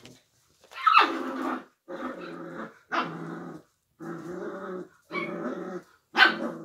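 Puppies play-growling while tugging and wrestling: about six short growls in a row. Sharp yips start the growls about a second in and near the end, and these are the loudest.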